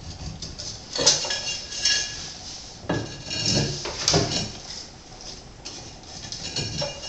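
Marble subway tiles clinking and knocking together as they are handled, a handful of sharp clinks with brief ringing over about three seconds, then quieter handling.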